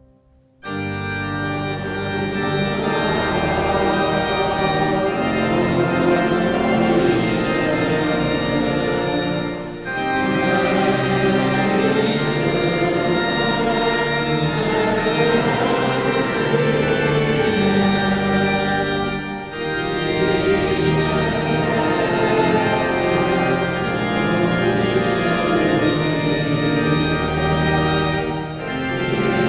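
Church organ playing a hymn in full held chords, starting about half a second in, with short breaks between phrases roughly every ten seconds.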